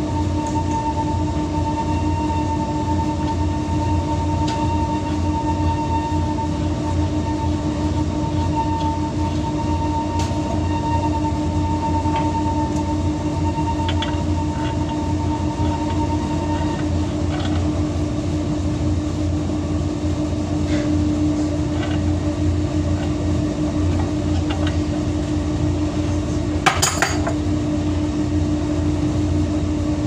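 Steady hum of commercial laundry machinery running, with a higher whine that stops about halfway through. A few light metallic clicks, then a short metallic clank near the end, from the plumbing fittings being handled.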